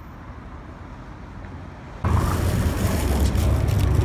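Outdoor street background with a low traffic rumble, quiet at first and jumping louder about two seconds in, with a few light clicks.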